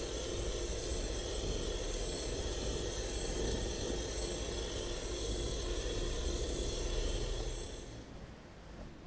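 Aerosol spray-paint can hissing steadily as paint is sprayed onto a clear polycarbonate RC car body. It stops abruptly near the end, leaving faint room tone.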